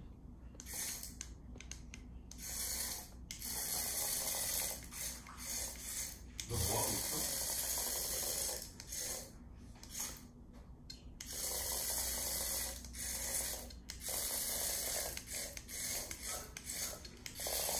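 Remote-control toy beetle's small motor whirring in short, irregular stop-start bursts as it scuttles across a wooden floor.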